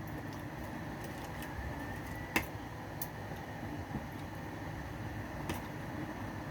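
Eating at a table over a steady background hum: a few sharp clicks of a utensil against a dish, the loudest about two and a half seconds in.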